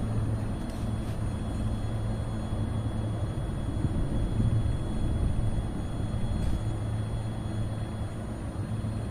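EG2Tv 'Ivolga' electric multiple unit standing at the platform, giving off a steady low hum.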